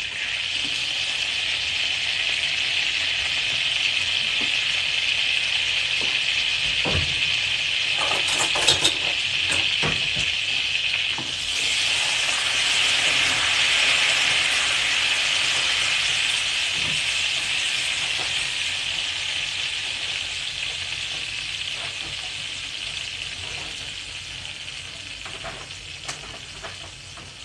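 Butter and oil sizzling steadily in a hot stainless steel skillet, with a few sharp clicks about a third of the way in. The sizzle slowly fades over the second half.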